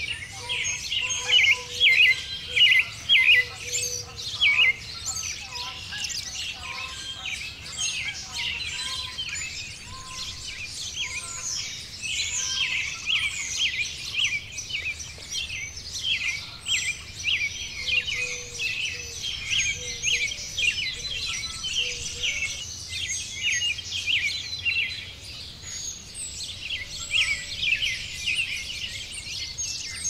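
Spring dawn chorus: many songbirds chirping and singing at once in a dense, unbroken chorus, with a lower, softer note heard now and then beneath it.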